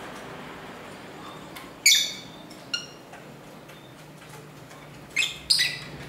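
Lovebirds giving short, shrill chirping calls: a loud one about two seconds in and a weaker one just after, then two more in quick succession near the end, over a steady low background hiss.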